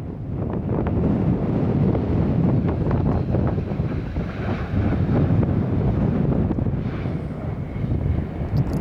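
Wind buffeting the microphone: a heavy low rumble that rises and falls without letting up, with a faint high steady whine joining about seven seconds in.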